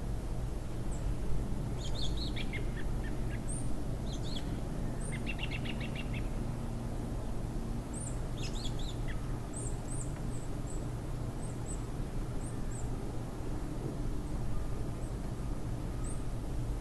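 Small birds chirping and twittering, with short high calls scattered throughout and a quick trill of rapid notes about five seconds in, over a steady low background rumble.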